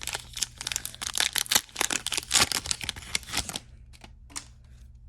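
A foil trading-card pack wrapper being torn open and crinkled, with dense crackling that stops about three and a half seconds in, followed by a few faint clicks.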